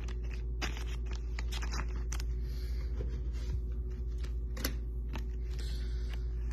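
Football trading cards being handled and flipped between the hands: scattered light clicks and rustles of card edges, one sharper click a little past the middle. A steady low hum underlies them.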